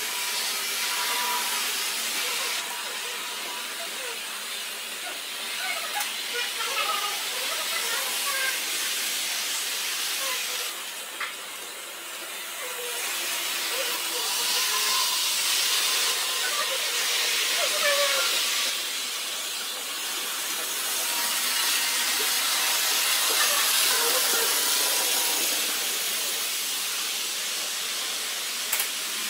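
Steady hiss of background noise, rising and falling slowly, with faint, indistinct voices underneath.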